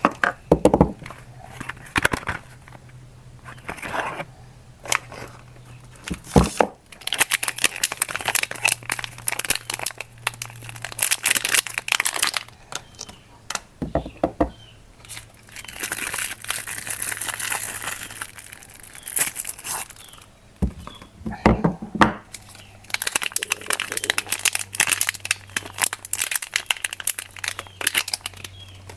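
Soap wrappers crinkling and tearing as bars of soap are unwrapped by hand, in crackly stretches broken by sharp clicks.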